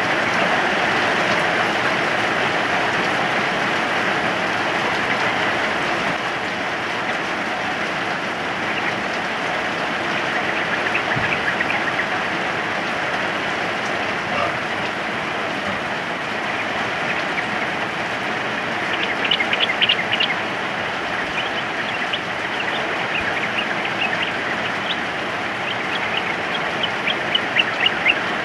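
Steady rain hissing, with yellow-vented bulbuls giving short bubbly call phrases over it, in quick runs about two-thirds of the way in and near the end.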